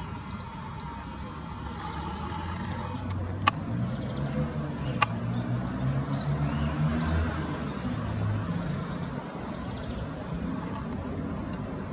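Low engine rumble that swells a few seconds in and eases off again, with two sharp clicks about a second and a half apart.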